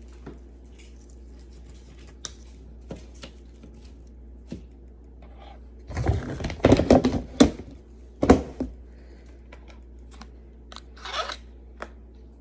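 Packaging being handled and torn open: scattered light clicks and taps, then a burst of crinkling and tearing about six seconds in, with another sharp rustle just after eight seconds and a softer swish near the end.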